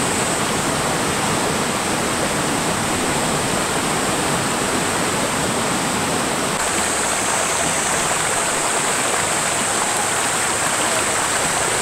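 Mountain stream rushing and splashing over rocks in small cascades, a steady, loud sound of running water. About two-thirds of the way through it shifts to a shallower rush over a rocky streambed, with less low rumble.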